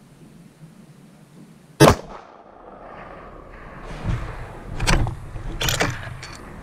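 A single rifle shot from a Ruger American Predator in 6.5 Creedmoor fitted with a muzzle brake, sharp and loud, about two seconds in. A few seconds later come several clicks and clacks of the bolt being worked to chamber the next round.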